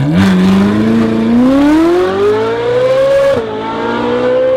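Ferrari 458 Speciale's V8 through an aftermarket FI exhaust, accelerating hard as the car pulls away. The revs climb steadily for about three seconds, drop sharply at an upshift, then climb and hold high again.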